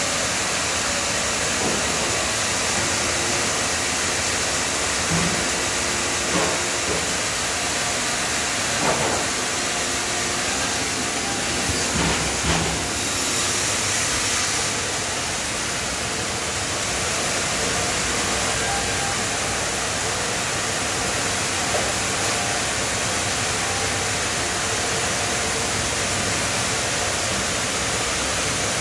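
Steady din of sawmill machinery running, with a few scattered knocks and clatters in the first half.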